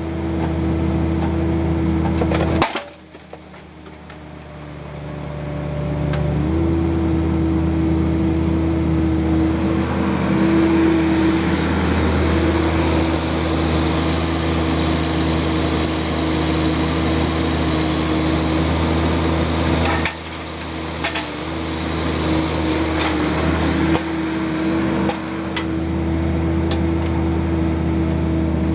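Bobcat mini excavator's diesel engine running under load with a steady hydraulic whine. The engine drops back suddenly about three seconds in and builds up again over the next few seconds, with a few sharp knocks.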